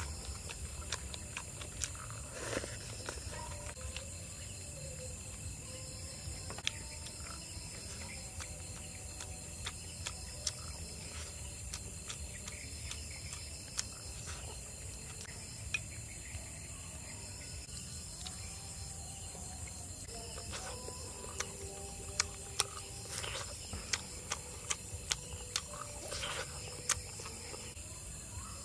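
Steady outdoor insect chirring with a low background rumble, broken by scattered small clicks and taps that come thicker near the end.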